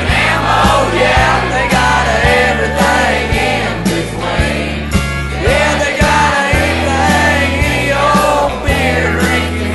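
Country band recording playing with a steady beat: bass notes, drums and a melodic lead line over them.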